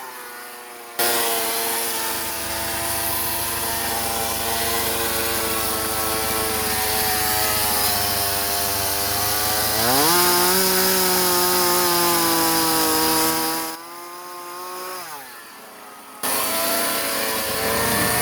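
Two-stroke chainsaw cutting into wood at full throttle, the engine sagging under load and then revving back up. About fourteen seconds in it drops to idle, and it opens up again shortly before the end.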